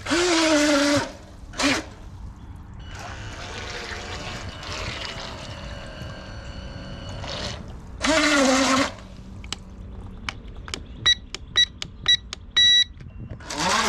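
Water swishing and trickling, with the faint high whine of a small RC boat's electric motor. Two short vocal sounds break in, and near the end come a few clicks and about six short electronic beeps, the last one longer.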